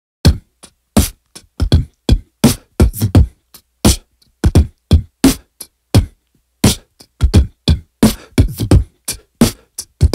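Background music made of sharp, dry percussion hits with silence between them, about three a second, starting abruptly out of silence.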